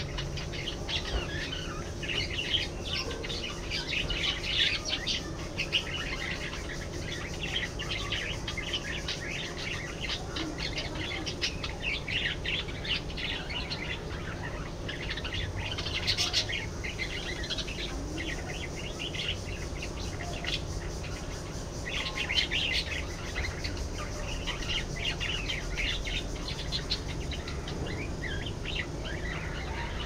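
A flock of budgerigars chattering continuously: many short, high chirps overlapping, with busier spells now and then.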